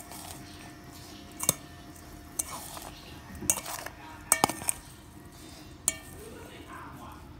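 Minced pork larb being stirred in a metal bowl: a utensil clinks and scrapes against the bowl several times, with a quick cluster of clinks near the middle.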